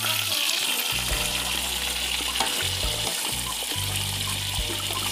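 Fish frying in hot oil in a steel wok, a steady sizzle, with a spatula stirring and scraping now and then.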